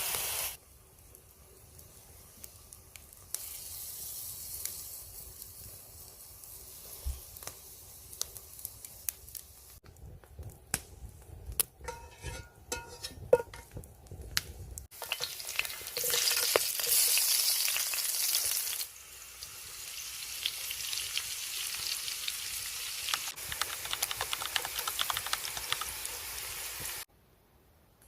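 Potatoes and chicken frying and sizzling in hot oil in a pan, with the clicks and scrapes of a utensil stirring. The sizzle comes and goes in several abruptly cut stretches, louder in the middle, with a quieter run of clicking and scraping a third of the way through.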